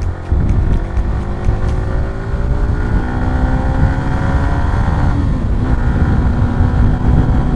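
Single-cylinder Bajaj Pulsar NS200 with a full-system aftermarket exhaust accelerating hard, its pitch rising steadily for about five seconds, a brief dip at a gear change, then pulling on at a steadier pitch. Heavy wind buffeting on the microphone underneath.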